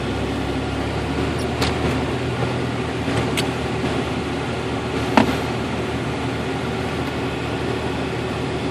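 1992 Jeep Cherokee's engine running with the air-conditioning compressor engaged: a steady hum with several held tones that carry the whine the owner traced to an overcharged A/C system, liquid refrigerant reaching the compressor. Three short clicks break in, the last and loudest about five seconds in.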